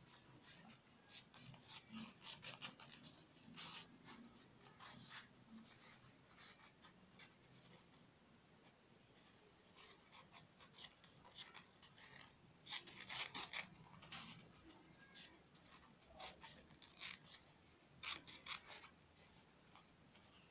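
Scissors snipping through a strip of thin lining fabric, faint, in several runs of quick cuts with short pauses between.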